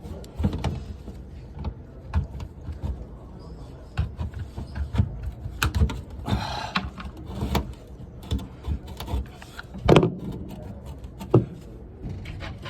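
Irregular knocks, taps and clicks of hand work on sheet-metal ductwork, with a sharp knock about ten seconds in.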